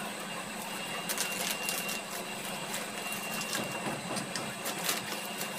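Fingertips rubbing and patting moisturizer into facial skin close to the microphone: soft rustles and light taps over a steady hiss with a faint hum.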